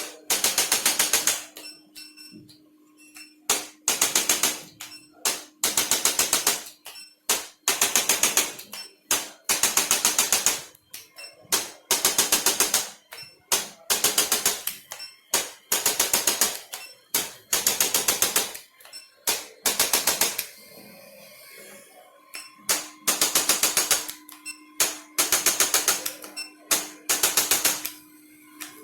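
Short bursts of very rapid mechanical clicking, each under a second long, repeating about every two seconds with a pause about two-thirds of the way through, over a steady low hum.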